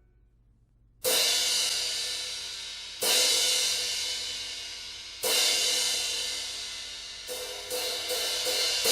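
A Kingdo cymbal struck three times about two seconds apart, each crash ringing out and slowly dying away, then a quicker run of four lighter hits near the end.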